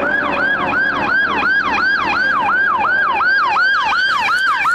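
Emergency vehicle siren in fast yelp mode, its pitch sweeping down and back up about four times a second.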